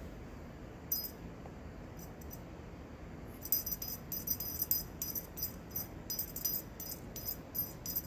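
A small bell jingling in quick, irregular shakes as a cat tugs on a toy wand: a couple of brief jingles, then near-continuous shaking from about three and a half seconds in.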